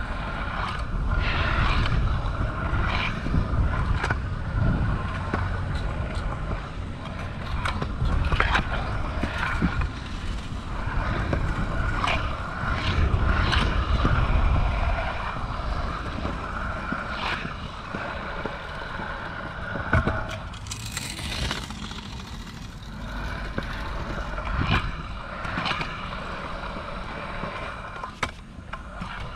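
Kick scooter wheels rolling on concrete, a steady rolling rumble with a wavering hum, broken now and then by sharp clicks and knocks. Wind buffets the helmet-mounted microphone.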